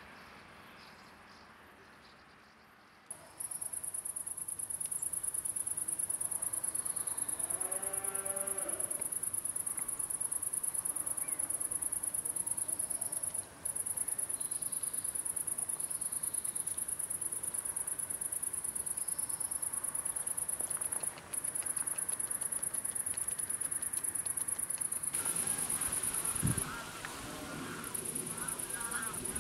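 A high, steady insect trill starts abruptly about three seconds in and runs on, breaking off briefly twice. A single honking call sounds about eight seconds in, and near the end some low thumps and rustling noise come in under the trill.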